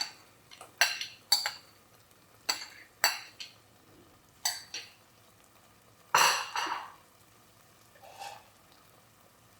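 A spoon scraping and clinking against a bowl and cooking pan as leftover masala paste is scraped in: about seven separate short strokes with quiet gaps, and one longer scrape about six seconds in.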